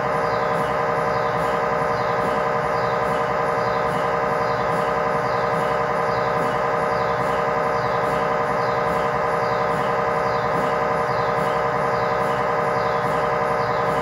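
GE MRI scanner's gradient coils buzzing steadily while it runs an axial T1 fast spin echo (FSE-XL) sequence. The loud, even drone is made of several steady pitched tones with a faint regular pulse, and stays the same throughout.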